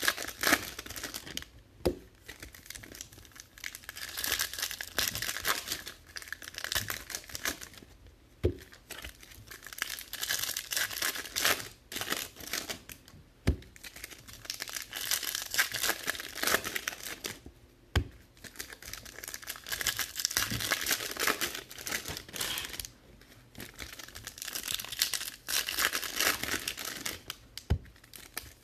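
Foil baseball-card pack wrappers being torn open and crinkled by hand, in repeated bursts with short pauses between them. A few sharp clicks are heard among the crinkling.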